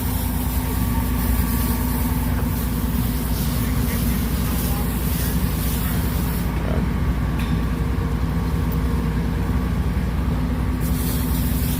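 A large vehicle's engine running steadily, a low, even hum that does not change.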